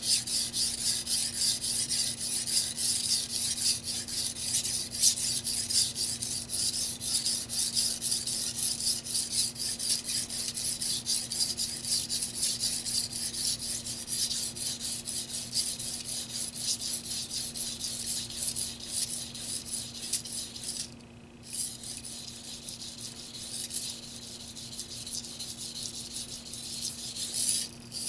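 Tojiro white-steel (Shirogami #2) petty knife blade scraping back and forth on a hard Shapton Pro water stone: quick, even rasping strokes as the edge is pushed into the stone and relaxed. A short break comes about three-quarters of the way through, and the strokes are lighter after it.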